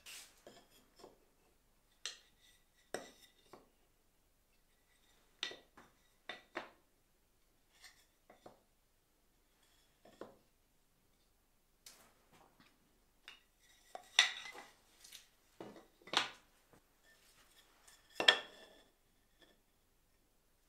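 Scattered clacks and knocks of thin wooden boards being handled, laid out and set down on a wooden workbench, with light clicks of a small metal square against the wood. The three loudest knocks come in the last third.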